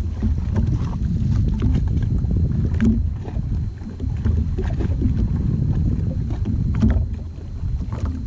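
Jet ski on open water: a low, uneven rumble with wind on the microphone, and a few light knocks and splashes of water against the hull.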